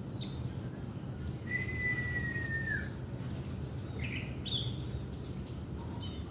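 Orange-headed thrush singing: one long whistled note about a second and a half in that dips at its end, then a couple of short, higher notes around four seconds in, over a steady low hum.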